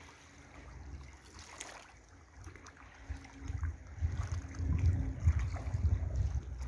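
Wind buffeting the microphone in a low, uneven rumble that gusts stronger about halfway through, over faint lapping of small waves at the shoreline.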